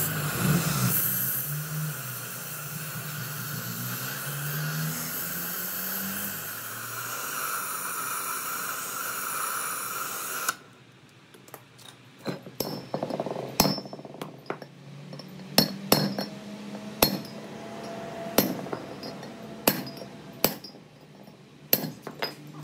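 A steady hum that cuts off abruptly about ten seconds in, followed by a run of sharp metallic clinks and taps, some with a short ring.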